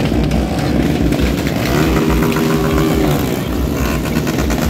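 Motorcycle engines running and revving as riders pull wheelies on a dirt track, with one engine note held steady for about a second near the middle.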